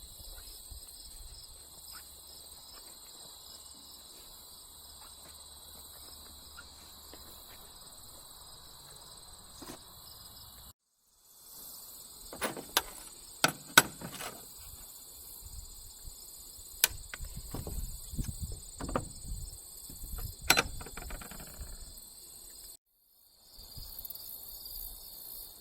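Insects chirring steadily in the background, with a run of sharp knocks and clatter in the middle stretch, the loudest sounds. The audio drops out briefly twice.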